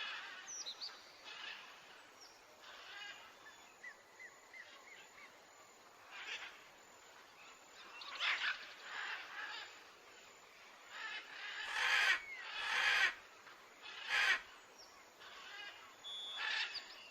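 Scattered bird calls and short chirps in outdoor ambience, with a few louder, harsher calls about twelve to fourteen seconds in.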